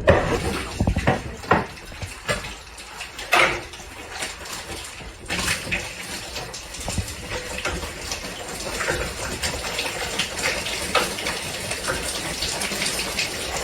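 Running water, with scattered knocks and clinks, most of them in the first few seconds.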